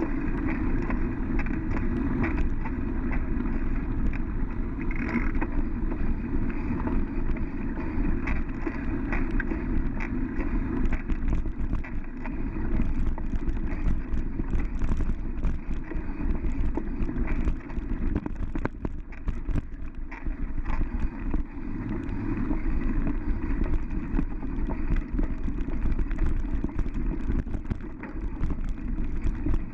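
Mountain bike rolling along a sandy dirt trail: a steady rumble of wind on the microphone and tyres on the dirt, with frequent small clicks and rattles as the bike goes over bumps.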